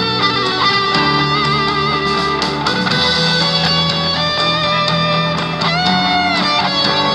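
Stratocaster electric guitar playing a melodic lead line, with a long held low note and a high note bent and wavering near the end.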